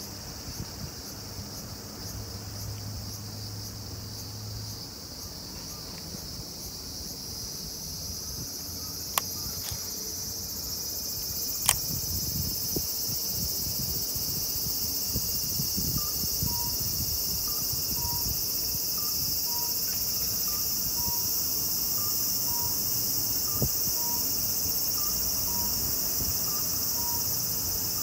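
A steady, high-pitched chorus of insects that swells about a third of the way in. A couple of sharp clicks come before the swell, and a faint beep repeats about once a second through the second half.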